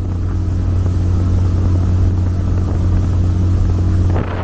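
Boat engine running steadily under way, a loud, even, low drone. Wind gusts on the microphone come in near the end.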